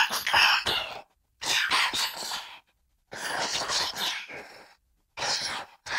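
Alien-language sound effect: processed, breathy, hissing gibberish voice in four or five short phrases with brief silences between them.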